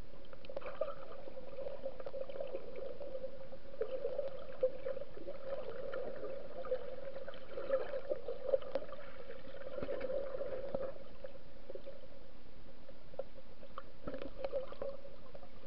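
Muffled underwater sound picked up by an action camera in its waterproof case: a steady hum with scattered small clicks and crackles.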